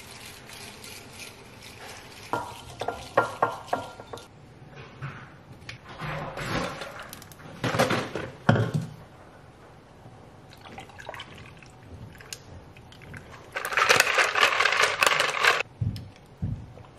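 Ice cubes clinking in a plastic tumbler, then almond milk poured in over them. Near the end comes a loud rattle of ice in the lidded cup, lasting about two seconds.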